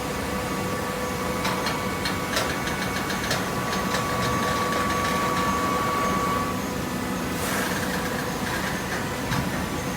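Horizontal hydraulic paper baling press running: a steady machine hum with a whine that holds from about a second in until about six and a half seconds, scattered knocks and clanks, and a short hiss about seven and a half seconds in.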